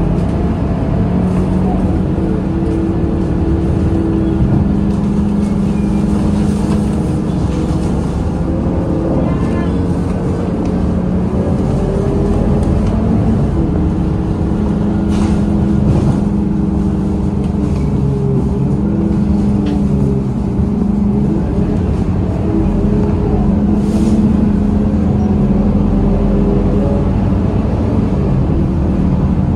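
Scania K230UB single-deck bus heard from inside the passenger cabin while under way: its five-cylinder diesel engine runs with a steady drone whose pitch steps up and down several times as the bus accelerates and slows, over road and tyre rumble, with a few brief knocks.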